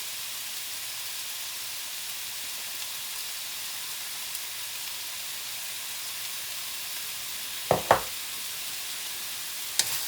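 Stir fry of marinated meat and vegetables sizzling steadily in a frying pan. Near the end there are a couple of quick sharp clicks, then one more.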